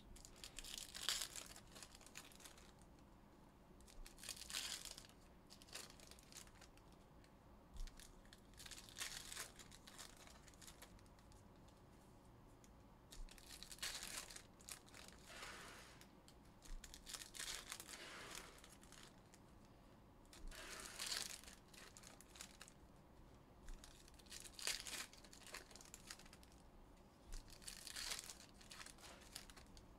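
Panini Prizm football card pack wrappers being torn open and crinkled by hand, in short scratchy bursts every second or two with quiet gaps between.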